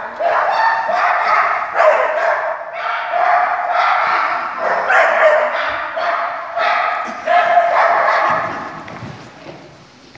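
A dog yelping and whining in a quick series of long, high-pitched cries, one after another, dying away about eight seconds in.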